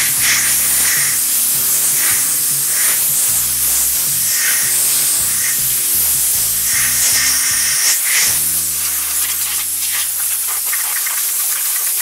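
Compressed-air blow gun hissing steadily as it blasts brake dust and dirt out of a disc brake caliper and off the rotor.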